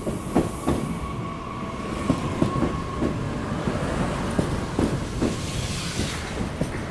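A train running, with a steady low rumble and irregular clacks of wheels over rail joints. A thin steady whine fades out in the first two or three seconds.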